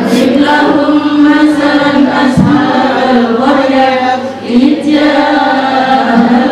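Group of women chanting a prayer recitation together in unison, a steady melodic chant with no pauses.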